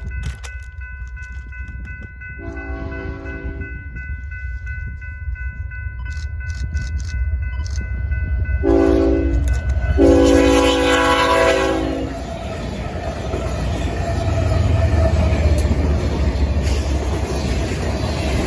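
A grade-crossing bell rings steadily while an approaching BNSF ET44C4 diesel locomotive sounds its horn for the crossing: a long blast, then a short one and another long one. The freight train then rumbles past, diesel engines and wheels on the rails running loudly.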